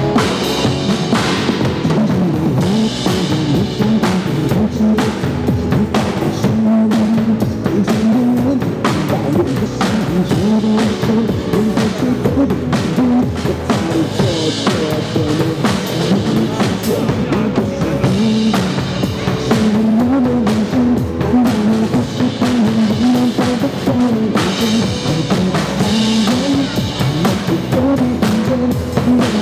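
Drum kit played to a steady rock beat over a recorded backing track that carries the song's melody, with dense snare, bass drum and cymbal hits throughout.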